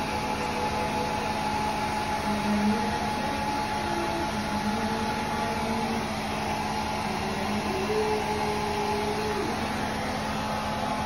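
Small handheld hair dryer running steadily, blowing on a newborn kitten to dry it: an even rush of air with a constant hum.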